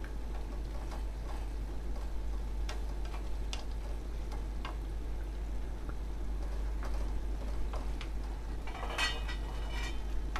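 Wooden spatula stirring chicken curry in a metal karahi: scattered light taps and clicks of the spatula against the pan, with a longer scrape about nine seconds in, over a steady low hum.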